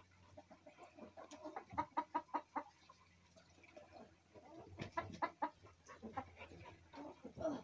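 Chicken clucking in three runs of short, quick clucks: about two seconds in, around five seconds in, and again near the end.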